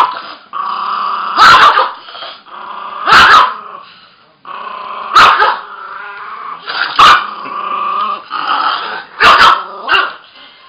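A Russian toy terrier growling in long stretches, broken by about six sharp, loud barks roughly every two seconds, with the last two close together near the end.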